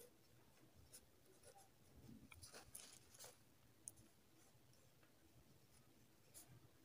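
Faint scratching of a pen writing on lined paper, in short scattered strokes.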